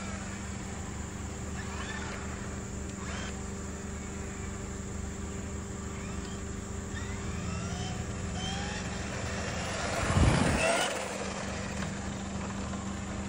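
Traxxas Ford Raptor RC truck's electric motor whining up in pitch several times as it accelerates, over a steady low hum, with one louder rush of noise about ten seconds in.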